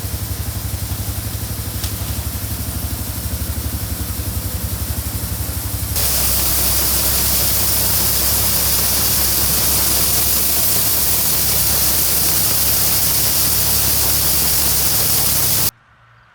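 Gleaner combine running during corn harvest: a steady engine rumble with a fast low pulsing. About six seconds in, a louder, even rushing hiss joins and holds. Near the end the sound cuts off abruptly.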